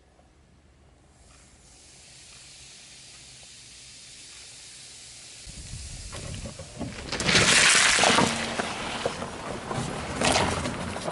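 Coca-Cola fizzing as it foams over Mentos, a hiss that builds steadily, then a much louder, rough spattering noise from about six seconds in, loudest in two surges.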